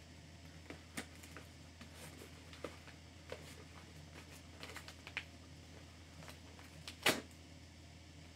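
Hands working a package open: scattered small clicks and crinkles, with one louder, brief crackle about seven seconds in, over a low steady hum.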